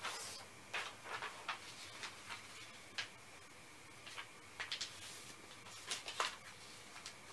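Writing on the lid of a cardboard shipping box: a run of short, faint, scratchy strokes, coming in small clusters with pauses between them.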